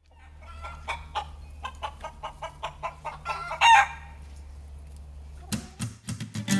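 Hens clucking in a quick run of short calls, with one much louder squawk about three and a half seconds in. A few sharp knocks follow near the end.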